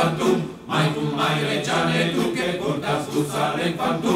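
Background music of several voices singing together over a steady low held note; the quiet handling of the basket's willow rods is not heard over it.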